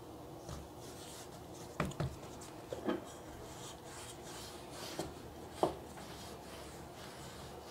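Hands handling a ball of dough, then a wooden rolling pin rolling it out on a stone countertop: a faint rubbing with a few light knocks.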